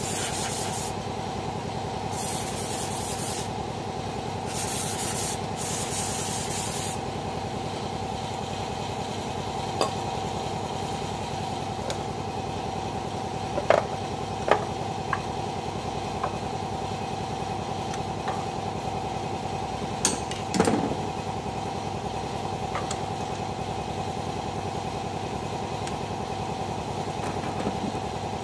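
Aerosol engine conditioner hissing out through its straw in three short bursts over the first several seconds, sprayed into the spark plug holes of a K6A engine. A steady hum runs underneath, and later a few scattered clicks and knocks come from parts being handled on top of the engine.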